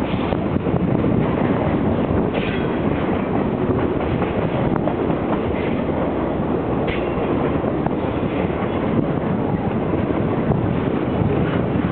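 Freight train of box cars rolling past, a steady rumble of steel wheels on rail with a few faint knocks.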